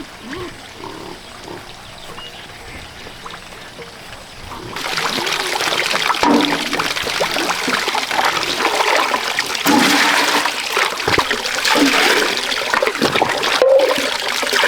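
Water splashing and rushing, starting suddenly about a third of the way in and staying loud, after a quieter stretch with a few short faint calls.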